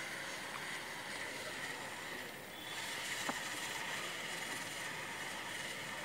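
Aerosol chain cleaner spraying from its can onto a motorcycle drive chain: a steady hiss that breaks off briefly a little past two seconds in, then starts again.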